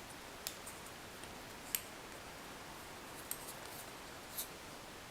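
Faint, scattered clicks and taps of small parts being handled as a new flat faucet washer is fitted onto a shower valve stem, about six in all, the sharpest near two seconds in.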